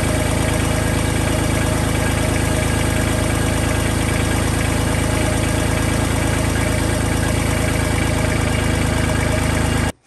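Kubota tractor's diesel engine idling steadily, with the A/C compressor engaged on its freshly tightened belt; the compressor clutch is slipping, which the owner puts down to rust. The sound cuts off suddenly near the end.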